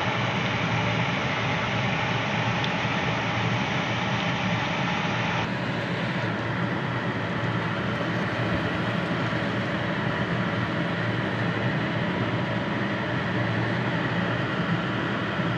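Steady noise of pancit (stir-fried noodles and cabbage) cooking in a pan on an induction cooker: the cooker's hum and the pan's sizzle, with no sharp knocks.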